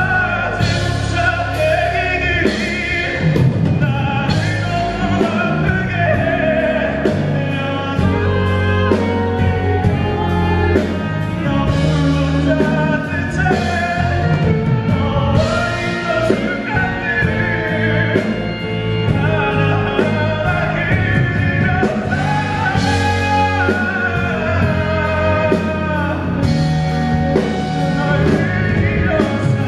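Live music: a male singer singing with instrumental accompaniment.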